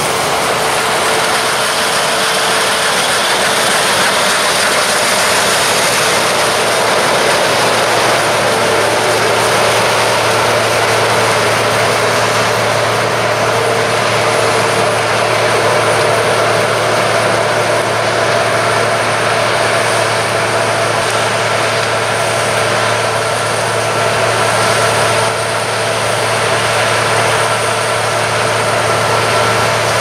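Claas combine harvester running steadily while cutting barley, a continuous loud machine drone with a steady low hum. At the start a tractor engine is heard pulling its grain trailer past.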